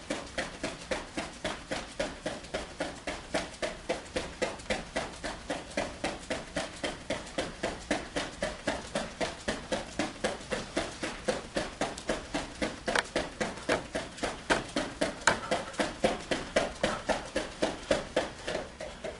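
Bare feet striking a padded gym mat in quick, even steps, about three a second, running in place with high knees.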